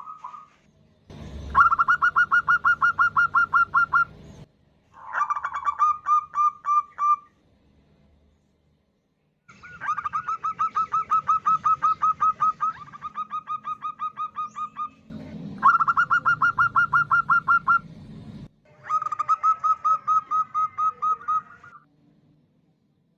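Female zebra dove calling: rapid series of short, same-pitched notes, about eight a second, in five bouts of a few seconds each with brief pauses between. It is the female's call used to draw in males.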